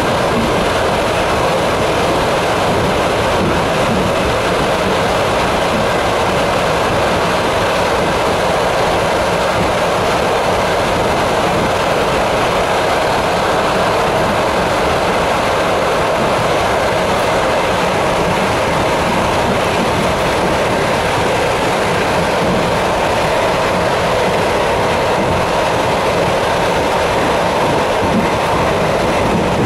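ET2M electric commuter train running steadily along the line: an even, continuous rush and rumble of wheels on rails.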